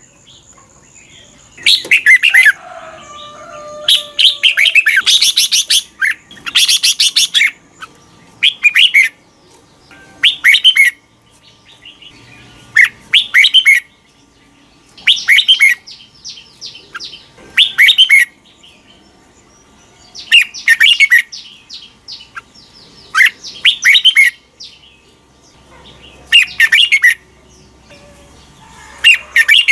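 Red-whiskered bulbul singing: a string of short, loud phrases of quick chirping notes, repeated every two to three seconds.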